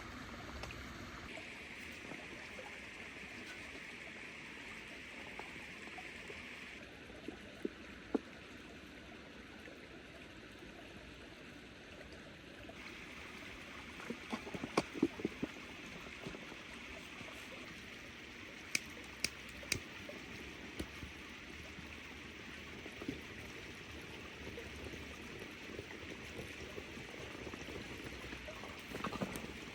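Steady rush of running water, with scattered sharp knocks and clicks: a pair about a third of the way in, a cluster in the middle, and three more shortly after.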